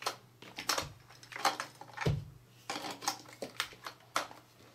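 Batteries being fitted into the plastic battery compartment of an electric fishing-game toy: a run of irregular small plastic clicks and clatters, with a duller knock about two seconds in.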